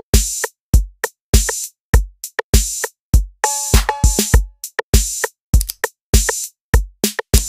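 Electronic music with a steady drum beat, a hit about every 0.6 seconds, and a few short synth notes around the middle.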